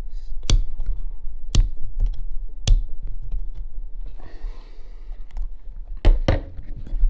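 Sharp clicks about once a second as a hobby knife blade works around the plastic wheel rim of an RC tire, cutting through the glue bond. A short scratchy rustle follows, then two louder knocks close together near the end.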